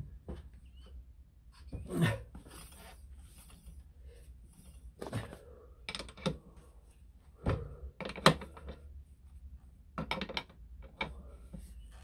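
Adjustable steel spanner clinking and knocking against the axle nut and swingarm of an electric scooter's rear hub-motor wheel while the nut is tightened: a string of separate metal knocks, the loudest about eight seconds in.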